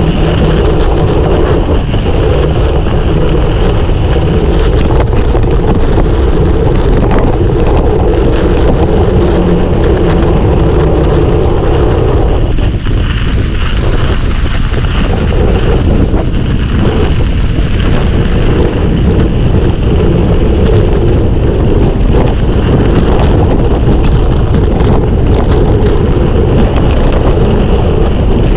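Steady loud wind noise buffeting the microphone of a mountain bike riding at speed along a trail, mixed with the rush of the tyres over the ground.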